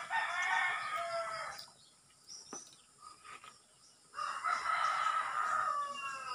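A rooster crowing twice: a long crow at the start and a second, slightly longer one about four seconds in, each trailing off downward at the end.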